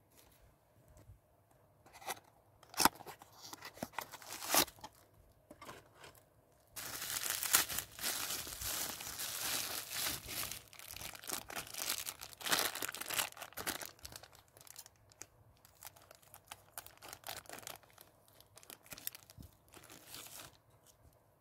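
Clear plastic bag crinkling and tearing as it is opened by hand, with two sharp clicks in the first few seconds, then about seven seconds of dense crinkling that thins into scattered rustles near the end.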